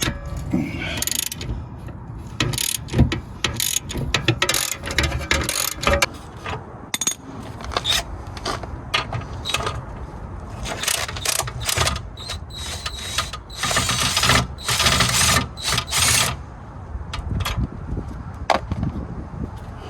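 Hand ratchet wrench clicking in irregular runs, with sharp metallic clicks and clinks of tools on metal, as fasteners are worked loose while removing a car driveshaft.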